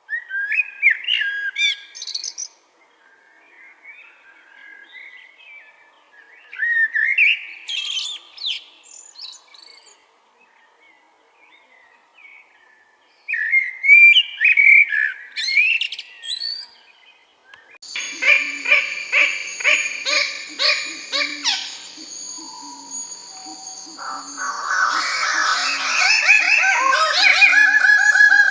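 A songbird singing three separate bursts of quick, sweeping chirps and whistles with short pauses between them. Just past the middle a different, louder sound cuts in, with a fast, even pulsing and held steady tones.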